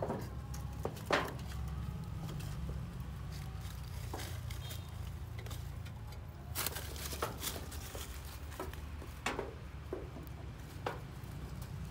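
Puppies scrambling over dry leaves, grass and sticks: scattered rustles and crackles, the loudest about a second in and again in bunches later, over a steady low rumble.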